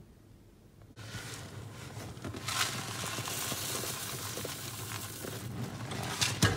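Rolled oats pouring from a cardboard carton into a saucepan of water, a steady rustling patter that starts about a second in, with a couple of sharp knocks near the end.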